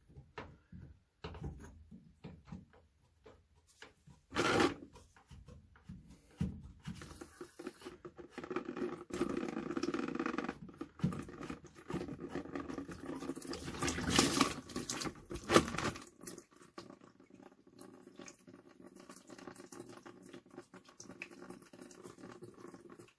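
Clicks, knocks and scraping of a plastic water filter cap being unscrewed and pulled from a tankless water heater's cold-water inlet, with one louder knock about four seconds in. Water pattering out of the opened filter port runs through the middle of the stretch and fades toward the end.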